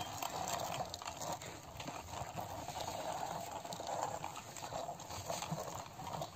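Plastic toy motorcycle pushed by hand along a concrete surface, its small plastic wheels rolling with a gritty noise full of small clicks.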